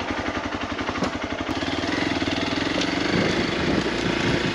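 Motorcycle engine ticking over with an even, rapid putter, then running faster and steadier from about a second and a half in as the bike pulls away.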